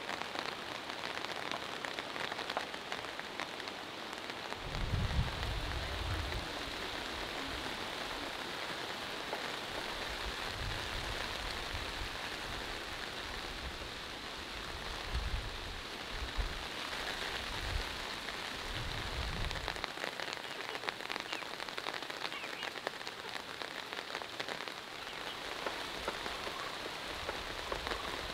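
Steady rain falling, a constant hiss of many fine drop hits, with several low rumbles in the middle stretch.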